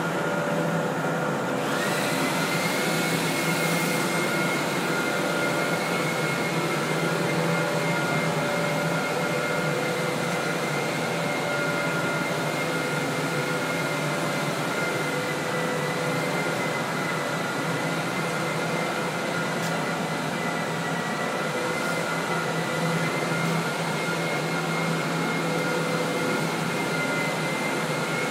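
Steady rushing noise with a high whine of an electric motor, the whine setting in about two seconds in and holding, over a low steady hum.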